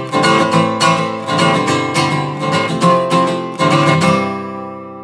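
Background music: acoustic guitar strumming chords in a steady rhythm, ending on a last chord about three and a half seconds in that rings out and fades.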